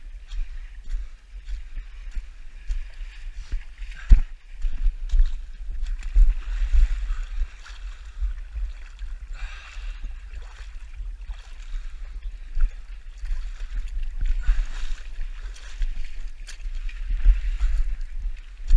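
Muddy water sloshing and splashing as a runner wades through water-filled mud pits, in swells, over a heavy low rumble of handling on the body-worn camera's microphone. A sharp thump about four seconds in.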